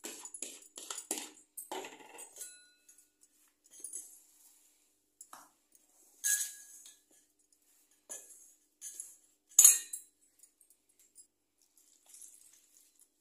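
Scattered clinks and scrapes of hands mixing rava batter in a stainless steel bowl, with two louder clinks about six and nine and a half seconds in.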